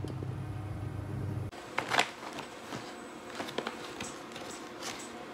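A steady low hum for about the first second and a half, then it cuts off and a plastic food packet rustles and crinkles as it is handled, with the sharpest crackle about two seconds in.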